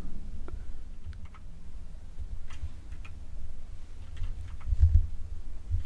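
Scattered, irregular clicks of keys being pressed on a mechanical keyboard with pudding keycaps, with a couple of low thuds near the end.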